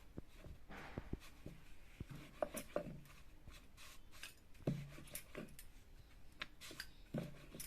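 Wooden rolling pin rolling dough on a chapati board: faint rubbing strokes with scattered light knocks and clicks.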